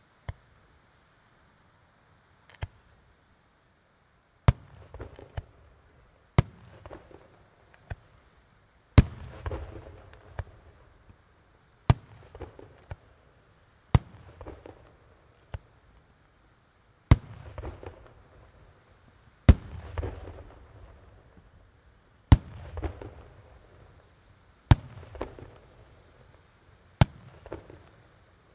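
Firework shells bursting one after another, a sharp bang every two to three seconds, each followed by a short crackling trail.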